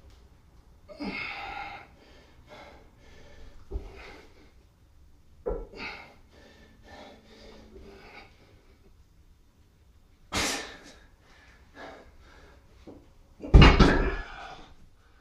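A man breathing hard in short forceful exhales through a set of T-bar squats with a plate-loaded barbell. Near the end there is a loud clank and thud as the weighted bar is set down on the floor.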